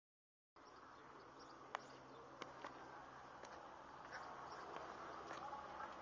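Faint outdoor background that cuts in after about half a second of dead silence: a low steady hum with a few short, high chirps and ticks scattered through it.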